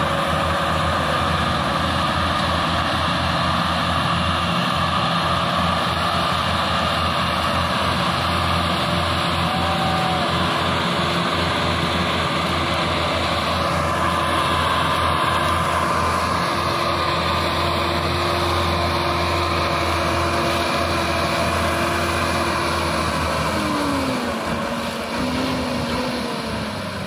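Several diesel tractor engines, among them a Massey Ferguson 385, running hard and steadily under heavy load as they haul a loaded sugarcane trolley. About three-quarters of the way through, the engine note falls and the sound eases off.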